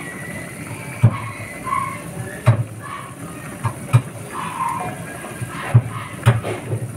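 Thick meat sauce with noodles boiling in a frying pan over a steady hiss, with several irregular low pops as bubbles burst.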